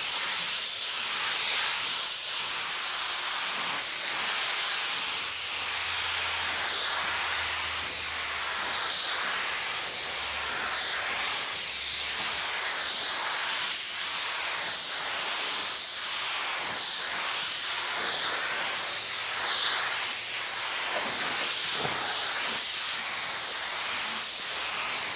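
LVLP gravity-feed spray gun hissing steadily as it sprays clear color blender at about 15 PSI with the fan pattern nearly wide open. The hiss swells and eases about every two seconds with each pass along the panel.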